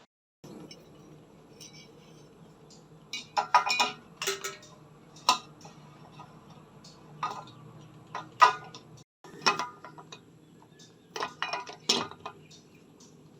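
Metal ceiling-fan parts clinking and knocking as they are handled and fitted together, in clusters of sharp clinks, the loudest about four and eight and a half seconds in, over a faint steady hum.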